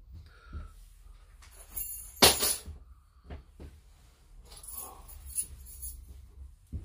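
A brief loud jingling rattle about two seconds in, with a fainter jingle around five seconds.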